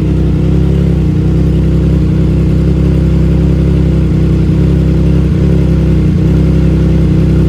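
Triumph Trident 660's inline three-cylinder engine idling steadily on a cold start through a full aftermarket exhaust with an added resonator, a deep, bassy idle.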